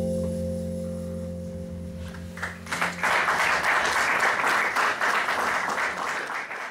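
A jazz band's final held chord rings out and fades, then audience applause breaks out about two and a half seconds in and continues.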